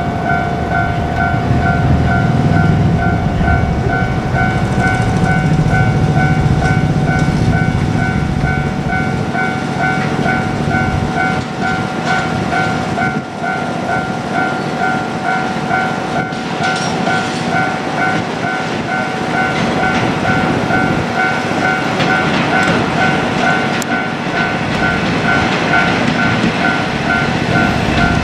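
Japanese level-crossing alarm ringing with a steady repeating electronic ding, over the diesel rumble of a JR Kyushu KiHa 47 railcar train. The rumble is strongest in the first several seconds and fades, with occasional wheel clicks later on.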